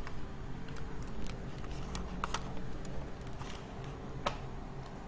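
Quiet room tone: a steady low electrical hum with a few faint, scattered clicks and taps.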